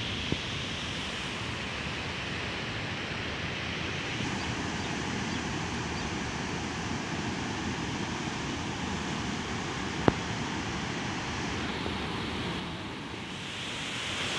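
Steady rush of floodwater churning through the open gates of a river barrage and along the swollen river, with a sharp click about ten seconds in.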